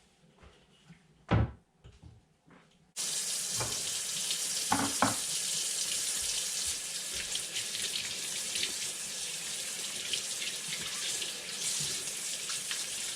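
A thump about a second in, then a water tap turned on about three seconds in, running steadily into a sink as brown-sugar-and-salt-cured trout are rinsed under it, with a couple of short knocks soon after it starts.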